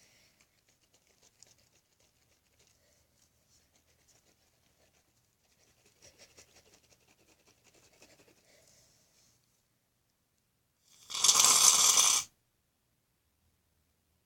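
Aerosol can of shaving cream spraying in one loud hiss lasting just over a second, shortly before the end, after several seconds of faint rustling as the can is handled.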